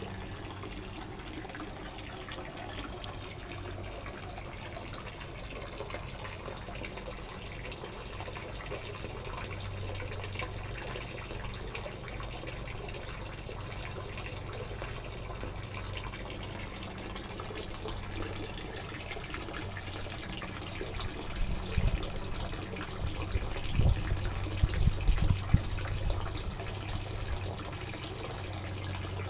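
Dolphin statue fountain splashing steadily into a garden pond. About three-quarters of the way through, a few seconds of low rumbling bumps sound against the microphone.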